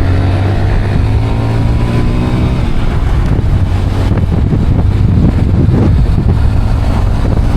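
Motorcycle running at road speed with wind buffeting the microphone; the engine's hum is clear for the first three seconds or so, then wind noise takes over.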